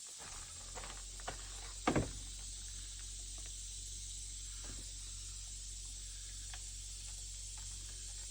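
A few light clicks and one sharper knock about two seconds in, from a chainsaw being handled while it is opened up for cleaning. A steady low hum runs underneath.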